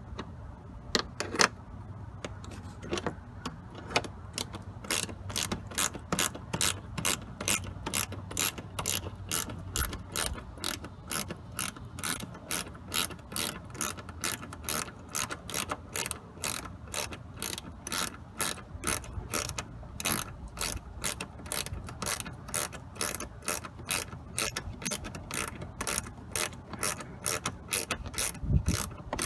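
Ratchet clicking while a screw is backed out, a few scattered clicks at first, then a steady run of sharp clicks at about three a second.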